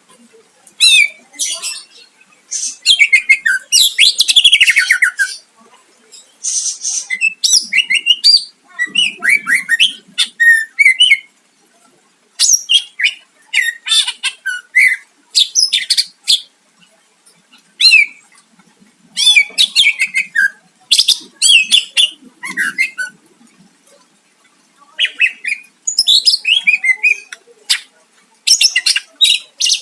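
A cucak ijo (green leafbird) singing loudly and steadily, in a run of varied, fast phrases of whistles, trills and harsh notes, broken by short pauses.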